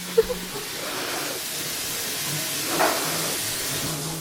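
Steady hiss, like rushing air or spray.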